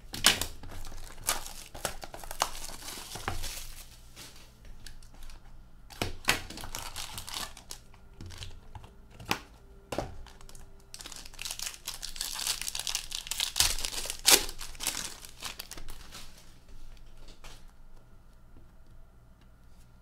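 Plastic wrapping crinkling and tearing as a sealed box of hockey trading cards is opened by hand, with cardboard rustles and small knocks. The rustling comes in uneven spells with a few sharp crackles, loudest just after the start and again about two-thirds of the way through.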